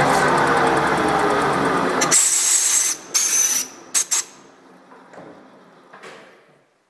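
Metal lathe running, then cutting out about two seconds in. A compressed-air blow gun follows with a long high hiss and a few short blasts, clearing chips from the freshly drilled hole while the chuck coasts.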